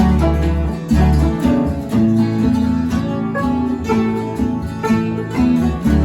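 Bluegrass-style music: plucked acoustic guitar and banjo playing with a steady beat.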